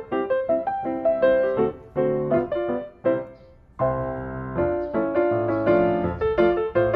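Background piano music: quick successive notes, a short pause about three seconds in, then a fuller passage.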